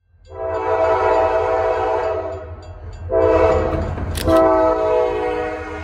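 Diesel locomotive's multi-chime air horn blowing two long blasts, with a brief sharp crack in the middle of the second one. A steady low rumble from the passing freight train lies underneath.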